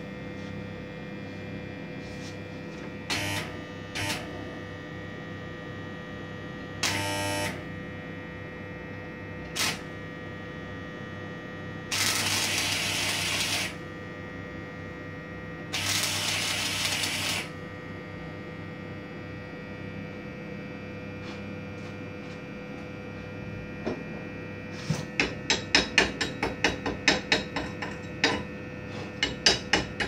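Homemade stick welder built from two microwave oven transformers, humming steadily at idle. The 2.5 mm electrode is struck four times in short crackles, then two arcs of about a second and a half each crackle and hiss as the piece is welded. Near the end comes a fast run of sharp taps, several a second.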